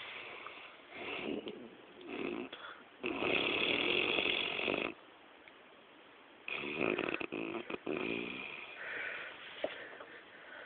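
A drunk man snoring heavily in his sleep. There are a couple of short snores, then a long loud one about three seconds in, and a rattling snore near seven seconds.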